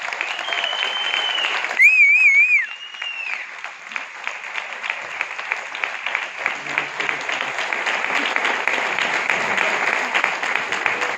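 Audience applauding after a band piece ends. There are a few high, wavering cheers in the first three seconds, and the clapping thickens into steady applause from about four seconds in.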